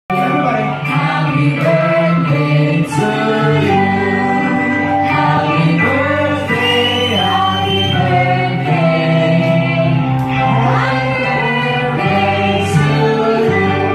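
Several people singing together into microphones, amplified over music.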